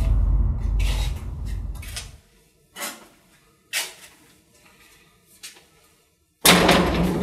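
A deep boom fading away over about two seconds, a few short knocks and rustles in the quiet that follows, then another sudden deep boom near the end.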